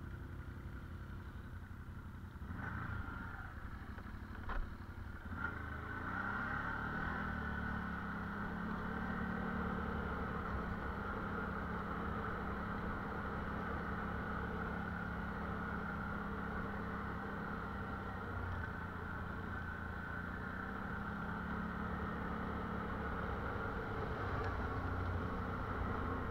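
CFMoto ATV engine running as the quad rides along. There are a few sharp knocks about three to five seconds in, and the engine gets louder and runs steadily from about five seconds on.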